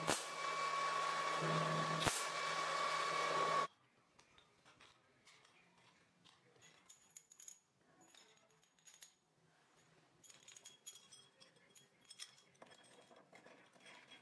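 A straight grinder with a thin cut-off disc runs with a steady high whine and grinding hiss, cutting through a bolt clamped in a vise, then cuts off suddenly about three and a half seconds in. After that come faint metallic clinks and ticks of a bolt, nut and steel plate being handled.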